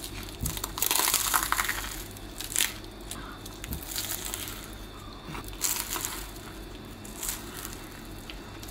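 Flaky croissant crusts crunching and crackling as they are bitten into and chewed, in several separate bites, the loudest about a second in.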